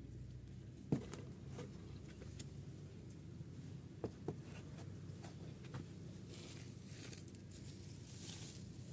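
Plastic bucket and flower pot being handled and set down on a board: a sharp knock about a second in, two lighter knocks about four seconds in, a few small clicks, then a soft rustle near the end, over a low steady background hum.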